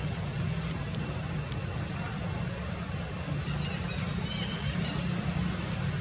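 A steady low rumble, with a few faint high chirps about three and a half to four and a half seconds in.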